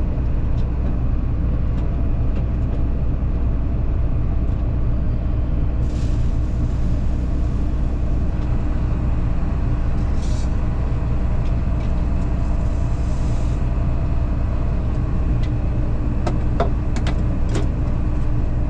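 Combine harvester running steadily under load with a constant low engine drone. A few light clicks come near the end.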